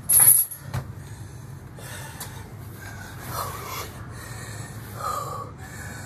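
A man breathing hard from the exertion of burpees, with several forceful, noisy exhales. The loudest is a sharp burst of breath right at the start, followed by a short knock just under a second in.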